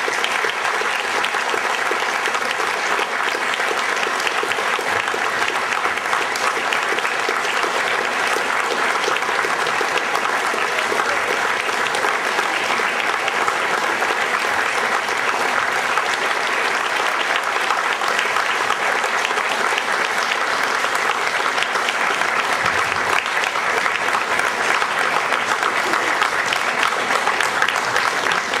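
Audience applauding steadily, a dense unbroken clapping that keeps going throughout.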